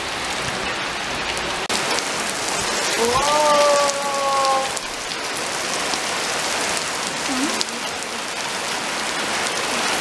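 Heavy rain pouring onto wet asphalt and puddles, a dense steady hiss of drops. About three seconds in, a short high held tone rises and then holds for under two seconds.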